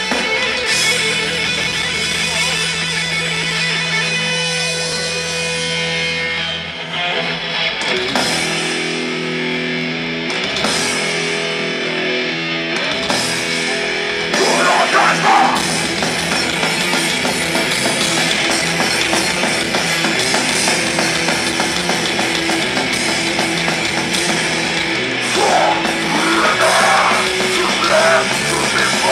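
Heavy metal band playing live with distorted electric guitars, bass and drum kit: long held chords for the first several seconds, then riffing. A vocalist shouts in near the end.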